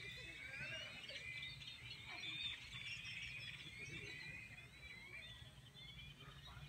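Dawn chorus: many birds chirping and twittering at once, faint, with quick overlapping calls that rise and fall in pitch.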